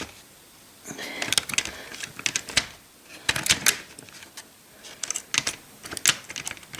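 Irregular clicks and light taps, some in quick clusters, from a model locomotive being handled and turned around on its track, with plastic and metal parts knocking against the rails.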